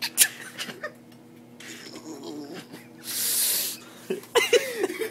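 Men laughing hard: wheezing, breathless laughter, with a loud hiss of under a second about three seconds in, then high, wavering laughing near the end.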